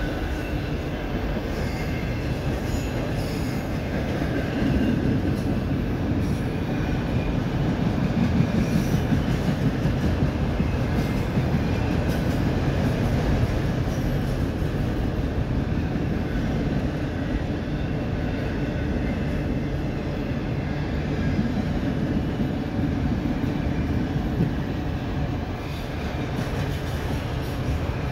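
CSX autorack freight cars rolling past on steel wheels: a steady, continuous rumble of wheels on the rails, with faint high wheel squeal in the first few seconds.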